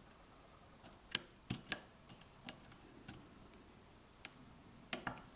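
Metal lock pick clicking and ticking against the pin stacks inside an Abus 83/45 padlock cylinder while probing the pins under tension: a scatter of small, irregular sharp clicks.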